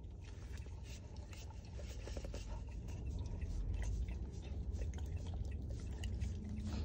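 A basset hound licking whipped cream out of a paper cup: quick wet lapping and small smacking clicks, over a low steady hum.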